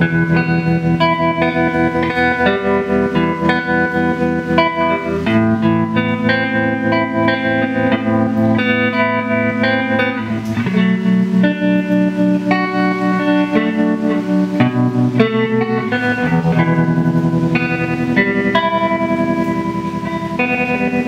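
Electric guitar played through a Giannini True Reverber combo amplifier, a string of picked notes and held chords with the amp's tremolo pulsing the sound.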